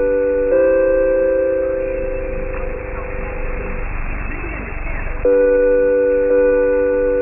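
Shortwave radio reception of held electronic tones sounding together like a chord. They shift pitch about half a second in, give way to static for about a second and a half near the middle, then return.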